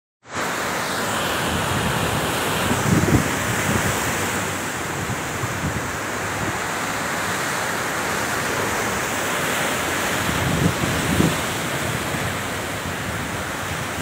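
Rough sea surf breaking and rushing over rocks at the foot of a cliff, a steady loud wash, with strong wind buffeting the microphone in gusts about three seconds in and again near eleven seconds.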